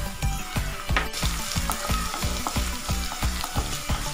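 Sliced garlic and ginger sizzling in hot coconut oil in a pan, stirred with a wooden spatula in quick repeated strokes, about three or four a second.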